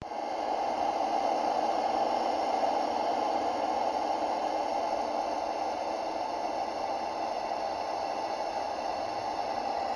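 A steady, hissing drone of noise, strongest in the middle range with faint steady tones above, starting abruptly after a moment of silence: one of the so-called 'sounds' of a planet or moon, spacecraft radio recordings converted into audio.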